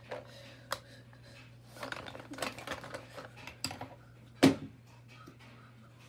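Makeup containers being handled, with scattered small clicks and rattles and one sharp, louder click about four and a half seconds in as the mascara tube is twisted open and the wand pulled out.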